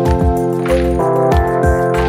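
Background music with a steady beat of low kick-drum thumps under sustained chords.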